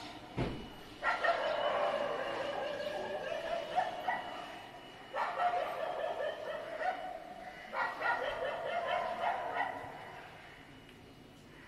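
An animal's long, wavering, high-pitched whining cries, three in a row with short pauses between them. A low thump comes just before the first cry.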